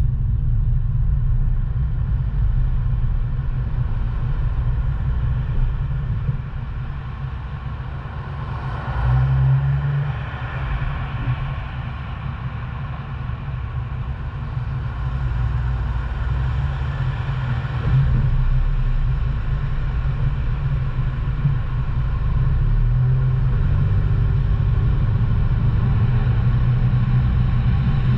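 Car driving through city streets: a steady low rumble of engine and road noise, with a hiss of tyres and traffic that swells and fades a few times.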